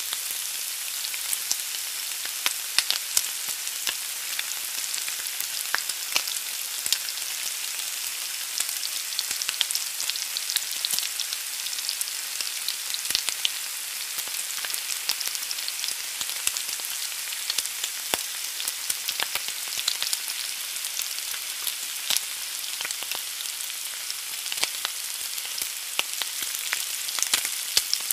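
Egg frying in a pan: a steady high sizzle with frequent small crackles and pops throughout.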